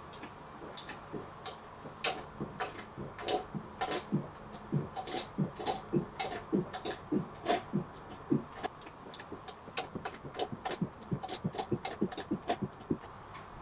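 A man gulping down a drink from a can: swallow after swallow in quick, even succession, about three a second, starting about two seconds in.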